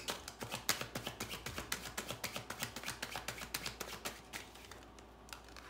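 Deck of tarot or oracle cards being shuffled: a quick run of light clicks, several a second, that thins out and fades about four and a half seconds in.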